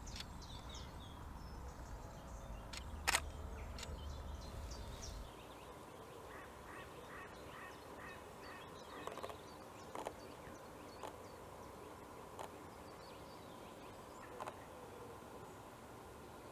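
Faint bird calls in open countryside: high short chirps in the first seconds, then a run of short repeated calls at about three a second a little before the middle. A sharp click about three seconds in, and a low rumble that stops about five seconds in.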